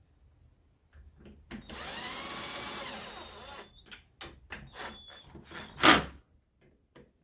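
Power drill running for about two seconds, its pitch rising then falling, as it drives fasteners during assembly of a scooter engine's water-pump fitting. It is followed by scattered tool clicks and a sharp knock near the end.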